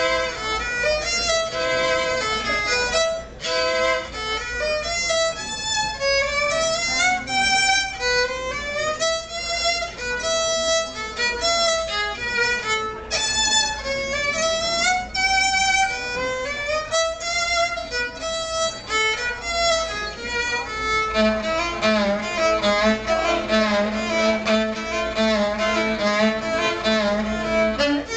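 Solo violin playing an advanced piece of variations: quick, leaping melodic runs. About two-thirds of the way in it changes to rapid repeated notes over a held low note.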